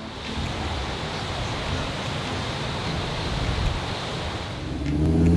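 Ocean surf washing onto a sandy beach, a steady hiss with wind on the microphone. Near the end a car engine comes in louder.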